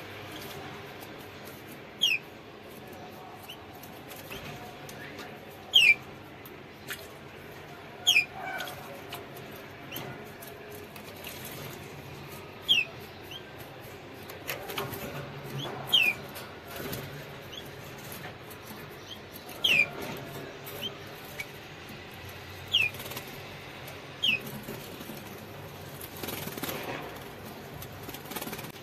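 Canaries bathing in a shallow water dish, fluttering their wings in the water in short flurries. Short, sharp falling chirps of canary call notes sound every few seconds.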